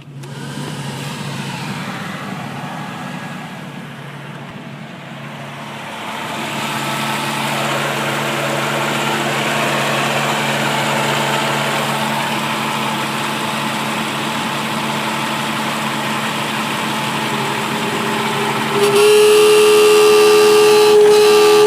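Jeep Cherokee XJ air-conditioning system running with the engine idling: a steady hum that grows louder about six seconds in, then jumps suddenly louder with a strong steady whine about nineteen seconds in. The noise comes from the AC system being overfilled with refrigerant.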